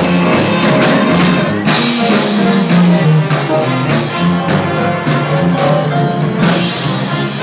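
Live brass band playing: saxophone, trumpets, trombone and sousaphone over marching drums, with a steady beat and a moving sousaphone bass line.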